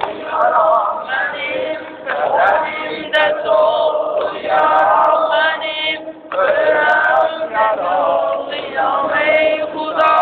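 Many voices chanting together in an Ashura mourning chant, sung in phrases with a short break about six seconds in.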